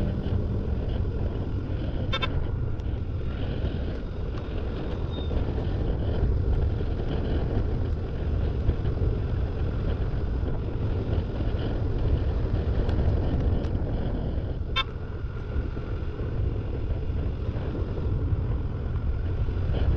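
Steady low rumble of a motorcycle riding along a road, with two short vehicle-horn toots, one about two seconds in and one near fifteen seconds.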